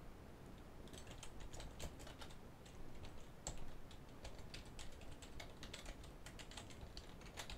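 Computer keyboard typing: faint, irregular key clicks, many in quick succession.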